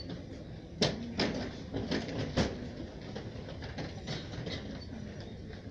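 A handful of sharp clacks and knocks, four louder ones within the first two and a half seconds and then fainter, scattered ones, over the low steady hum of a large hall.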